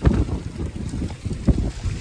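Strong thunderstorm wind gusts buffeting the microphone in irregular blasts, loudest right at the start and again about a second and a half in.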